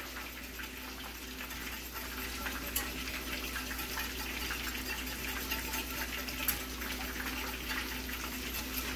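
Wire whisk stirring a thin sauce in a stainless steel skillet, the liquid swishing and sloshing with light taps of the whisk on the pan, over a steady sizzle of chicken frying in oil in a cast iron skillet.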